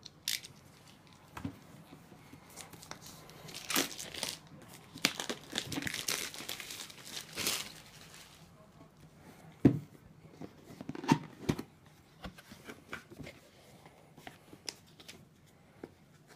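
A cardboard product box being opened: its seal is slit with a box cutter and torn, with several seconds of tearing and crinkling, then a few sharp knocks as the flaps are handled, and the rustle of paper leaflets being lifted out near the end.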